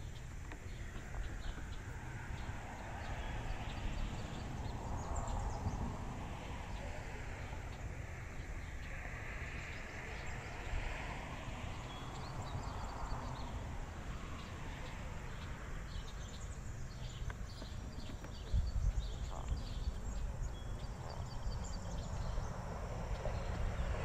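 Footsteps along a nature trail, with a low rumble of wind on the microphone and faint high chirps scattered through the background.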